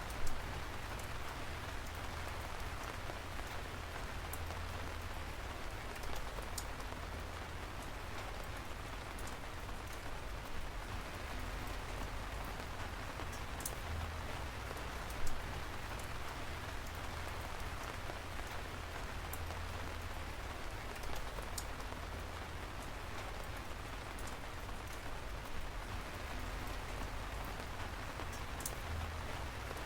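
Steady rain falling on a surface: a constant hiss scattered with the sharp ticks of single drops. One louder drop-hit lands just after the start and another about halfway through.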